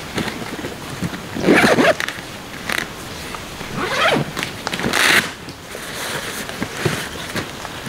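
A rucksack's zipper being pulled open in several quick strokes, with fabric rustling as a packed item is pulled out of the bag.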